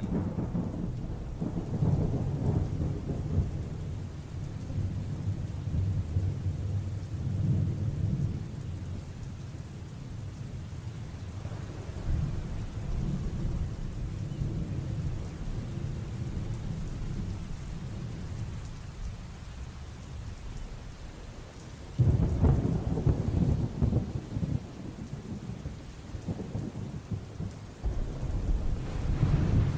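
Thunderstorm sound effect played over the hall's speakers: rolling thunder over steady rain, swelling and fading, with a sudden louder burst of thunder about 22 seconds in.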